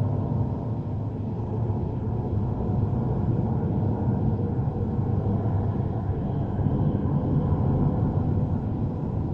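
Suspense sound effect: a low, steady rumbling drone.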